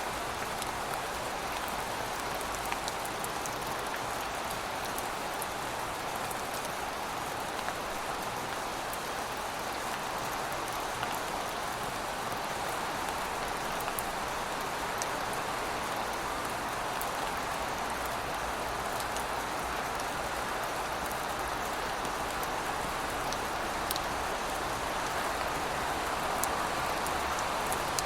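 Steady rain falling on city surfaces, an even hiss with scattered sharp drop ticks over a low background rumble, growing slightly louder near the end.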